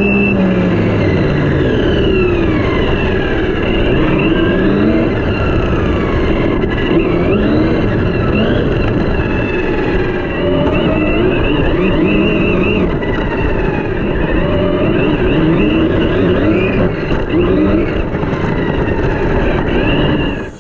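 Brushless electric motor and drivetrain of a Team Corally Kronos XP 6S RC monster truck whining, its pitch sweeping up and down again and again with the throttle, over the rush of wind and tyres heard from a camera mounted on the truck.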